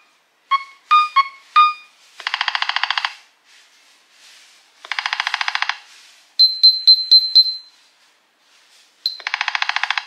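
Nothing Phone (1) playing its electronic ringtones through its speaker: four short pitched beeps, then buzzy bursts of about ten pulses a second lasting about a second each, three times, with a run of five high chiming pips between the second and third.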